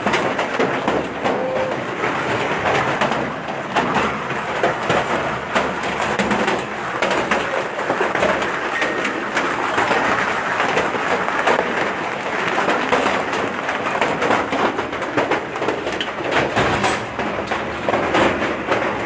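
Hail pelting down in a storm: a loud, steady, dense clatter of countless small impacts.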